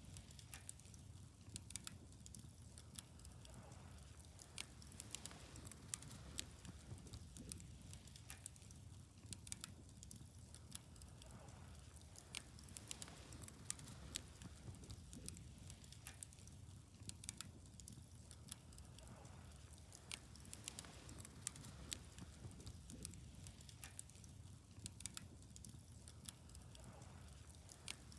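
Wood bonfire crackling faintly: frequent, irregular sharp pops and snaps over a steady low rumble of the flames.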